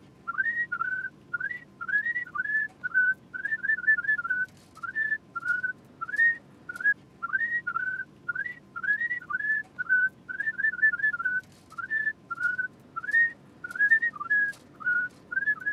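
A person whistling a tune in short notes, many of them swooping upward, with faint clicks from work at the bench behind it.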